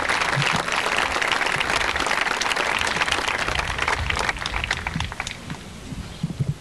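Outdoor crowd applauding, dense clapping that thins out and dies away about four to five seconds in.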